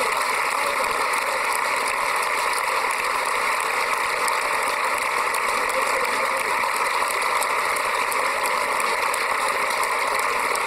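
Large crowd applauding steadily, a dense even clatter of many hands clapping.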